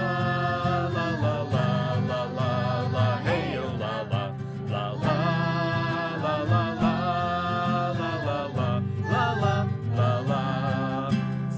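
Several voices singing a wordless 'lá lá' refrain together, accompanied by guitar.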